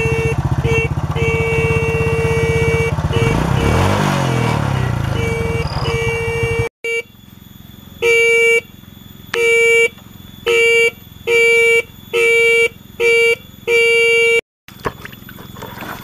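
Honda Astrea Grand motorcycle's electric horn beeping, first over the running engine, which revs briefly about four seconds in. After a cut, the horn gives about seven short beeps in a row. The horn, which had been dead, is working again after the repair.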